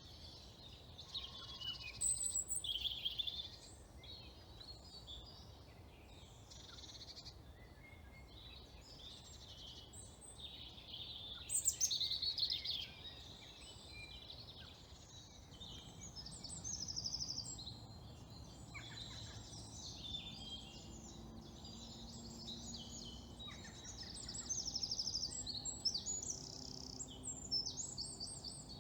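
Several wild songbirds singing and chirping in spring woodland, short calls and trills overlapping throughout, with a faint steady low background rumble underneath.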